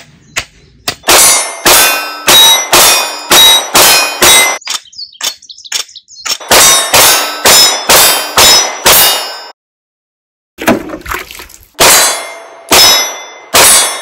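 Handgun fired in rapid strings of about two shots a second, each shot followed by the ring of a struck steel plate target. There is a brief dead-silent break partway through before the firing resumes.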